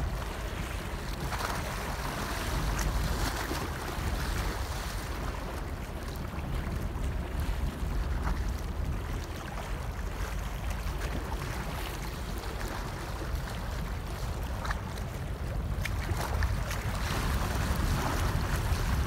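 Wind buffeting the microphone in an uneven low rumble, over the wash of choppy water.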